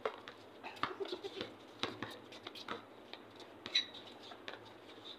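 Basketball bouncing on a hard outdoor court, a sharp knock about once a second, with a few short high squeaks between three and four seconds in.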